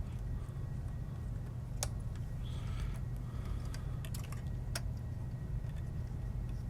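A few sharp light clicks and a soft rustle as a data cable is handled and routed through a metal server chassis, over a steady low hum.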